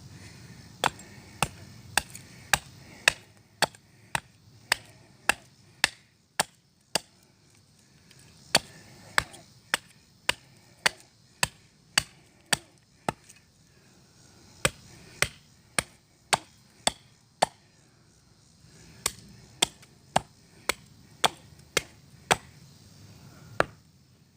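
Swiss Army surplus hatchet chopping into wood to carve a point on a stake: sharp strokes about two a second, in runs broken by short pauses.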